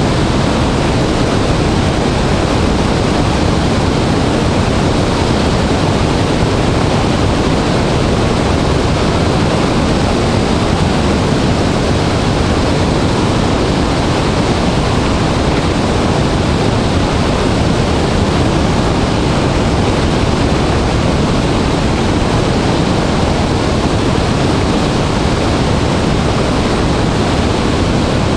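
Dray Nur Waterfall running in high flow: a loud, steady rush of falling water with a deep low rumble.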